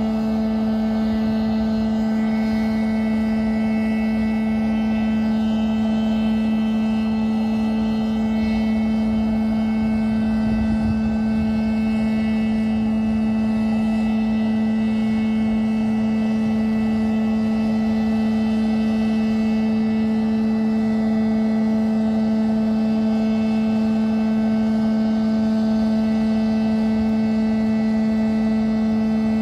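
Jet turbine noise on a flight line: a steady, loud hum with a stack of higher whining tones that does not change.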